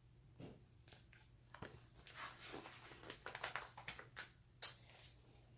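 Faint paper rustling and light clicks, like a picture book's pages being handled and turned, with one sharper click near the end.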